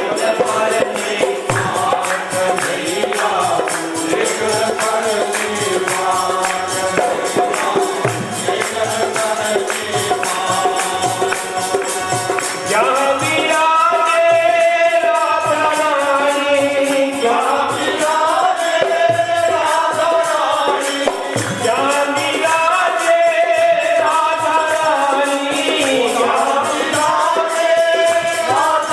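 Himachali devotional bhajan kirtan music: a fast, steady percussion beat, with voices singing from about halfway through.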